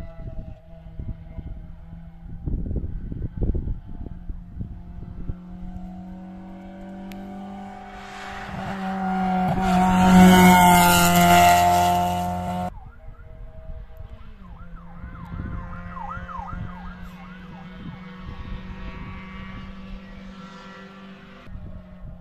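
Race car engine at high revs approaching and passing close, its pitch climbing and growing loud, peaking about halfway through and then cutting off abruptly. Wind buffets the microphone, and afterwards a more distant engine is heard revving up and dropping back several times in quick succession.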